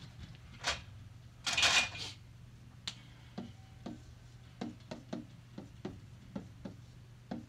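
Whiteboard eraser wiping across the board in two short swishes, then a marker drawing on the whiteboard, its tip making a quick string of short taps and scratches.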